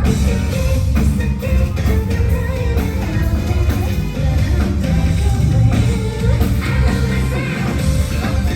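Rock band playing a song: a woman singing over electric guitar and a drum kit, loud and steady throughout.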